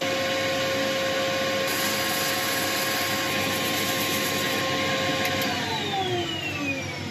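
Wood lathe spinning a large elm platter while sandpaper is held against it: a steady rubbing hiss over the motor's steady whine. About five and a half seconds in, the whine starts falling in pitch as the lathe is switched off and slows down.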